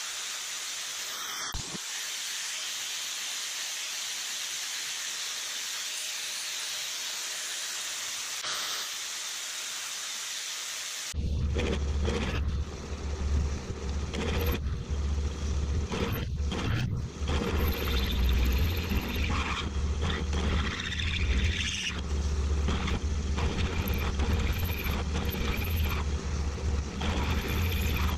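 Angle grinder working a steel leaf spring clamped in a vise, cleaning it to bare metal, a steady even hiss. About eleven seconds in it gives way to a drill press running, a steady low motor hum, with the bit cutting into a bushing and chips scraping.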